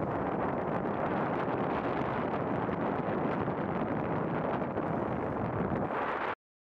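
Steady rush of wind on the microphone over the rolling roar of longboard wheels on asphalt at speed. The sound cuts off abruptly near the end.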